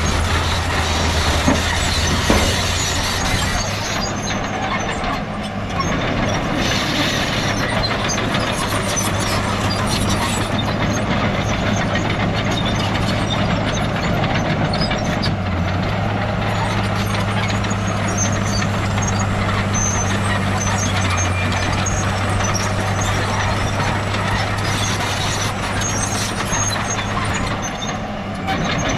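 Heavy diesel earthmoving machinery running steadily: engines holding an even pitch over a dense mechanical rumble, with a few scattered knocks.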